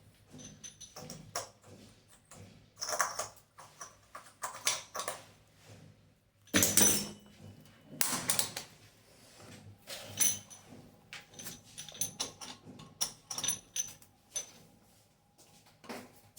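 Irregular knocks, clinks and rattles of tools and metal fittings being handled while a kitchen sink mixer tap is fitted, with a louder clatter about seven seconds in.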